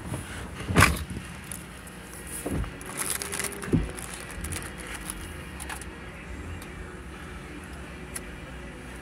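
A sharp thump about a second in, then two duller knocks, over a steady low rumble inside a car.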